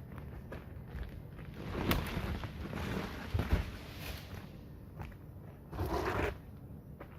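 Irregular footsteps and scuffing, with short louder noisy rustles about two, three and a half and six seconds in.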